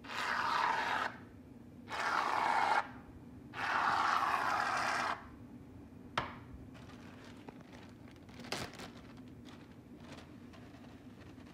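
Aerosol foam can spraying onto slime in three hissing bursts, about a second, a second and a second and a half long. About six seconds in comes a single sharp click, then faint rustling and light taps.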